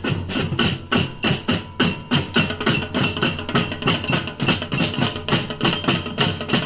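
Batucada percussion ensemble playing a quick, steady rhythm of drum strokes.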